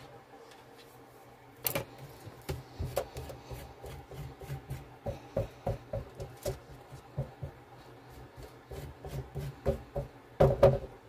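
Silicone spatula scraping and folding thick cake batter against the sides of a mixing bowl: a run of short, irregular scrapes and taps, with a louder knock near the end.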